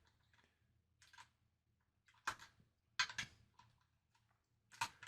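Scattered light clicks and taps of small metal guitar tuner parts being handled and fitted by hand, about five sharp clicks, some in quick pairs.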